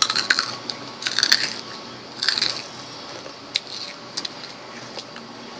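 Snack packaging being handled: three short bursts of crinkling and crackling about a second apart, then a few scattered single clicks.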